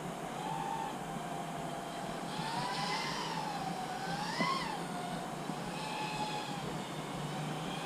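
Brushless motors and propellers of an Eachine LAL3 3-inch FPV quadcopter in flight: a steady whine that rises and falls in pitch with the throttle, peaking about three seconds in and again about four and a half seconds in.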